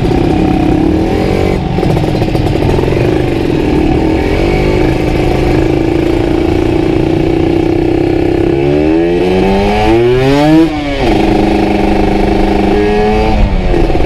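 Kawasaki Ninja RR 150's single-cylinder two-stroke engine running through a CMS aftermarket exhaust, idling steadily with a few short throttle blips. About two-thirds through it is revved hard, its pitch climbing for about two seconds before dropping straight back to idle, and a couple more blips follow near the end.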